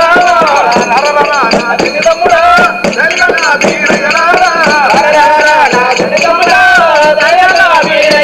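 Telangana Oggu Katha folk music: a wavering, gliding melody line over rattling hand percussion, with steady strokes throughout.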